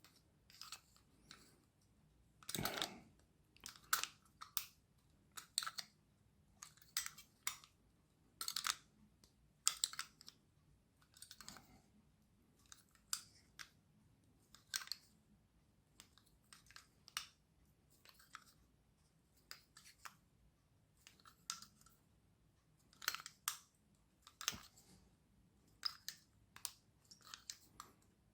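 Irregular small clicks, crackles and scrapes of the plastic parts of a small 9-LED torch being pried and pushed apart by hand, as the LED array is worked loose from its reflector, with a longer scrape about two and a half seconds in.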